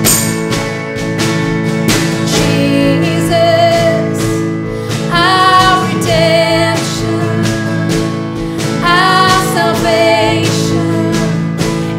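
Worship band playing a song: two women singing with keyboard, acoustic guitar and a drum kit keeping a steady beat. The singers hold long, wavering notes about five and nine seconds in.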